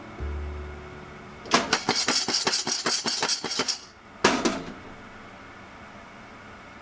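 Unroasted coffee beans rattling in a lidded saucepan as it is shaken over the burner: a rapid clatter for about two seconds starting a second and a half in, then one brief shake. The beans are in the early drying stage of the roast, before they colour.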